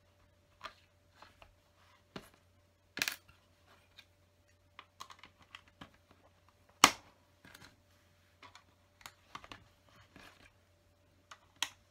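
LEGO plastic bricks and plates clicking and tapping as they are picked off the table and pressed onto the studs of a grey baseplate. Scattered short clicks, two of them louder, about three and seven seconds in.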